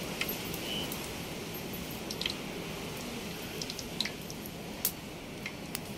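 Water heating in a clay pot over a wood fire: a steady low noise of fire and simmering water, with scattered sharp crackles from the burning firewood, the loudest about two, four and five seconds in.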